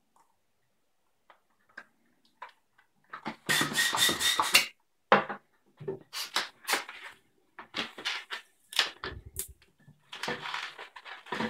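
Hand pump inflating a long white 160 modelling balloon in a run of quick airy strokes, with balloon-handling noises between them.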